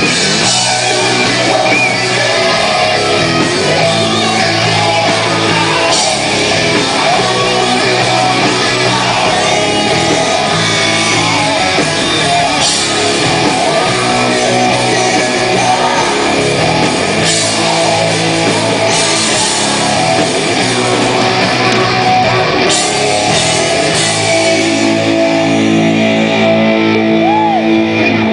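Live hard rock band playing through a PA, with electric guitars, drums and singing; for the last few seconds the band holds a sustained final chord.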